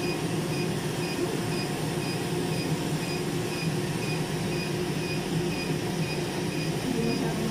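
Laser hair removal machine running: a steady hum from its cooling, with a short high beep about twice a second as the handpiece fires pulses.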